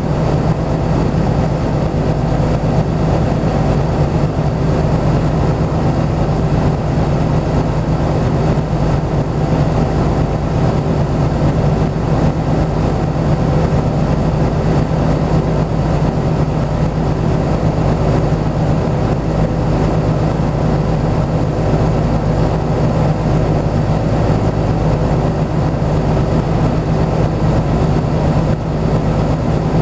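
Hino Blue Ribbon city bus's diesel engine idling steadily, heard from inside the passenger cabin while the bus stands still.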